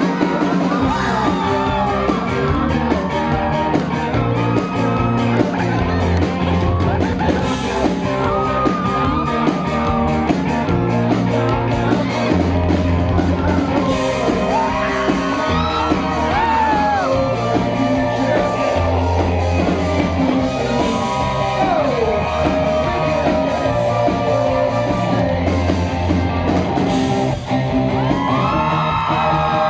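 Live rock band playing: electric guitars with bass and drums, a lead line bending over a bass that changes note every second or two.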